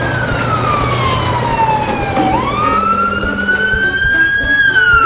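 Cartoon siren sound effect: a wailing tone that slides slowly down for about two seconds, climbs back up, and starts to fall again near the end.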